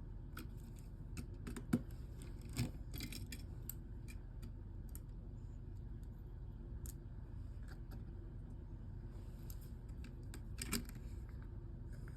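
Scattered small clicks and taps of a Samsung Galaxy S9's parts being handled and pressed into place during reassembly, with a few sharper knocks about two seconds in and near the end, over a steady low hum.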